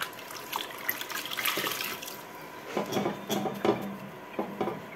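Wet sponge or cloth wiping the glass door of a wood-burning stove insert, rinsing off ash paste. A wet swish comes first, then a run of short rubbing strokes in the second half.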